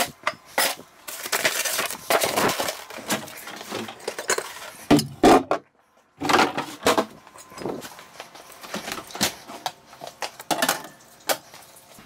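Soda cans and beer bottles being set down into containers: knocks and clinks of cans on ice in a foam cooler and on the hard plastic bottom of a trash can, with handling rustles in between.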